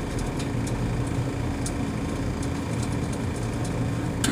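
A machine or engine runs with a steady low drone, and a few light clicks and knocks sound on top.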